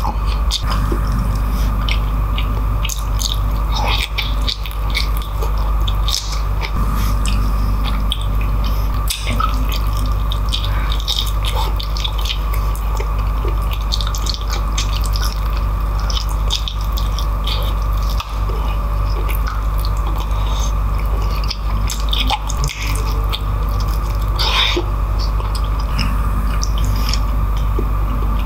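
Close-miked chewing of soft, saucy beef tripe and oxtail eaten by hand: wet lip-smacking and squishing, with many short moist clicks. A steady low hum runs underneath.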